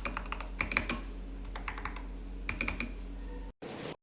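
Keys on a mechanical keyboard being typed in quick runs of clicks, in three bursts with short pauses, over a faint steady hum. A brief burst of hiss follows near the end.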